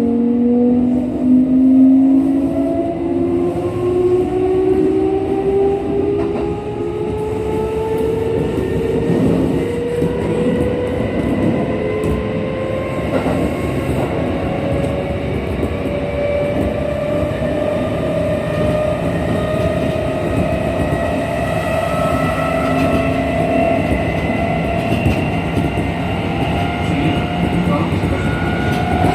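Kintetsu 1233 series electric train, set VE46, running with a motor whine of several tones that rise slowly and steadily in pitch as it accelerates, over a steady rumble. This is the set singled out for an abnormal running noise.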